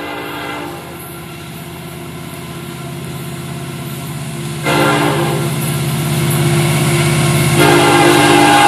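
An approaching Florida East Coast Railway diesel freight locomotive, an SD70M-2, sounding its air horn for the grade crossing: one blast ends just under a second in, another begins about halfway through, and a louder blast starts near the end. Under the horn, the diesel engine's low rumble grows louder as the train nears.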